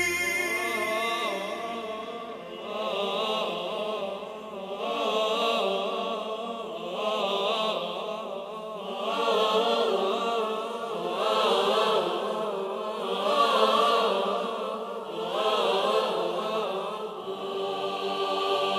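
Choir singing long held notes over an orchestra, the sound swelling and fading about every two seconds.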